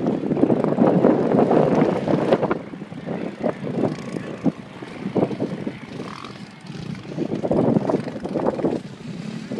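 Sand car engine, freshly rebuilt and boosted, running on low boost (about 6 lbs) while being warmed up. It is loud for the first two seconds or so, drops back, then swells again near the end.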